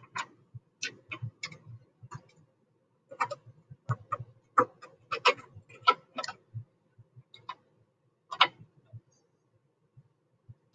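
Irregular sharp clicks and light knocks of CNC hold-down clamps being slid into place and screwed down, coming in small clusters with short pauses.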